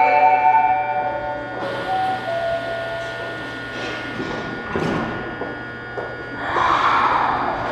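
Subway station platform: the last notes of a chime melody fade out in the first second or two, then platform background with a brief knock about five seconds in and a short hiss of noise near the end.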